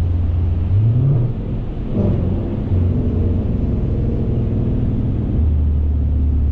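Car engine and tyre noise on a wet road heard from inside the cabin: a steady low drone whose pitch rises briefly about a second in as the car speeds up, then settles back into a steady drone.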